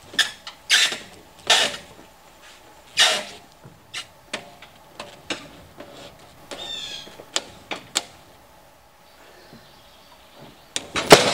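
A heavy black cherry log being rolled over on a sawmill bed with a cant hook: several loud scraping knocks in the first few seconds, then scattered clicks and a brief rattle, and a loud clatter near the end.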